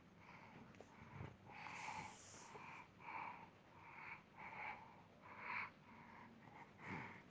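A small child's faint, wheezy breathing: short raspy breaths, about one or two a second, the chesty breathing of a child with a cough.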